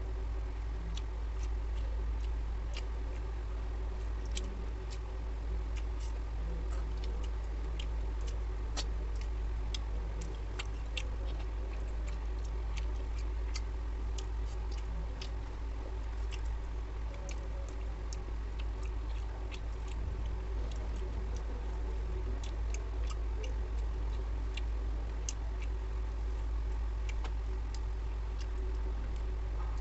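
Eating by hand from a steel plate: irregular small wet clicks and smacks of chewing and of fingers mixing rice and curry, over a steady low hum.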